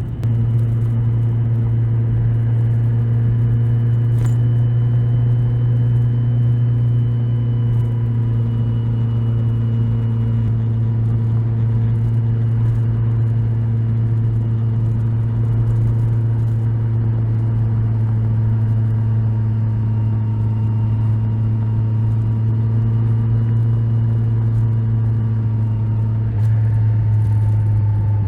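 Kawasaki Z1000SX's inline-four engine running at a steady road speed under way, with a strong steady hum. It gets a little louder near the end.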